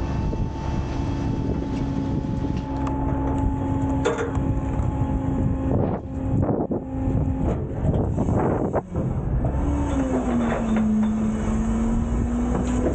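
Autocar/Heil front loader garbage truck running its packer: the engine and hydraulics hold a steady hum while the packer blade pushes trash toward the back of the hopper, with scattered knocks and crunching as the load is compacted through the middle. Near the end the hum drops in pitch as the cycle finishes.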